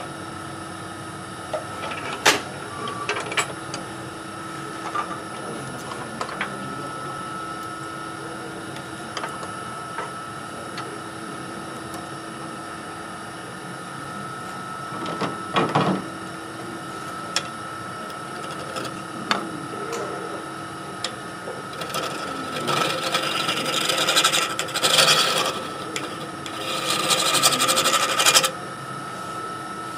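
Wood lathe running with a steady whine as a wood blank spins on it. A few knocks as the tool rest is shifted, then about three-quarters of the way through, two spells of a hand-held turning tool cutting into the end of the spinning wood.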